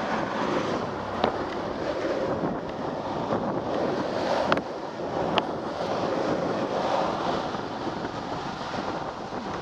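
Longboard urethane wheels (Orangatang Kegels and Abec 11 Centrax) rolling fast on asphalt, mixed with wind rushing over the microphone. A few sharp clicks stand out.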